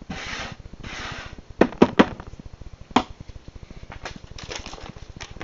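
A hand brushing wood chips across a wooden board in two sweeps, then three sharp knocks in quick succession and a fourth about a second later, followed by lighter clicks and rustling.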